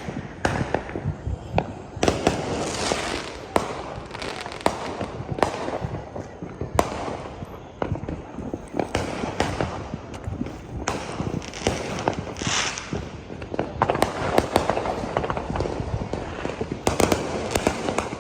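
Fireworks and firecrackers going off all around: a constant crackle with many sharp bangs at irregular intervals, a few standing out louder than the rest.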